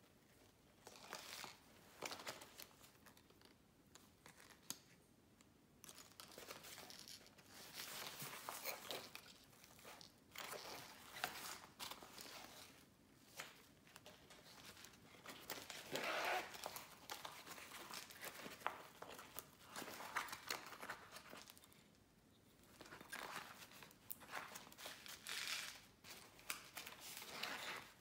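Rustling and crinkling of a fabric roll-up pencil case being handled, with small clicks from the coloured pencils and felt-tip pens held in it. Faint and irregular, loudest about sixteen seconds in.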